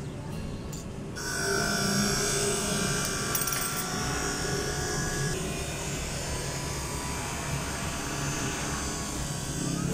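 A small electric motor or power tool running steadily with a thin whine, starting about a second in.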